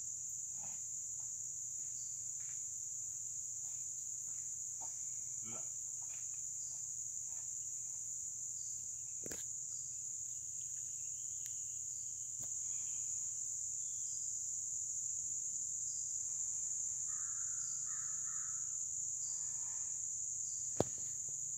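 Steady high-pitched chorus of insects in summer woods, unbroken throughout. A few faint calls come in late, and there are a couple of sharp clicks, one near the end.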